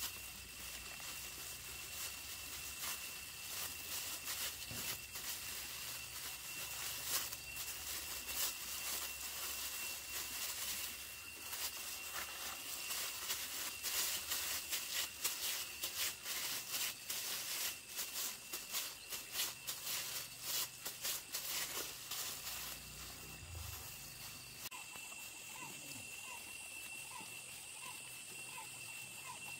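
Crinkling and crackling of plastic food-prep gloves as hands knead and roll balls of sticky-rice dough, a dense run of small crackles through the middle, over a steady thin high tone. Near the end the crackling stops and a few short chirps are heard.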